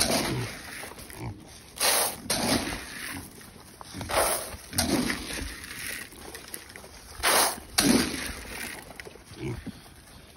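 Young pigs grunting as they crowd and eat at their feed bowls, a handful of short grunts spread through.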